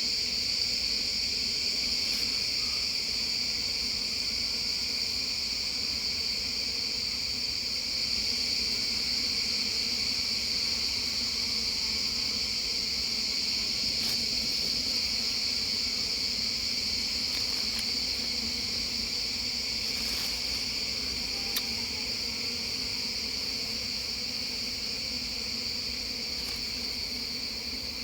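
A steady, high-pitched chorus of forest insects, with a low hum of honeybees from an opened tree-hollow hive underneath it.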